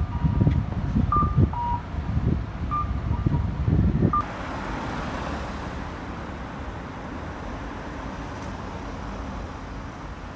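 Road traffic on a city street, with a few short electronic beeps over the first four seconds. About four seconds in it changes abruptly to a steadier, quieter traffic hum.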